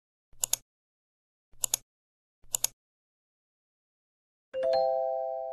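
Edited-in title-card sound effects: three short double clicks about a second apart, then a chime of a few steady tones that sounds about four and a half seconds in and slowly fades.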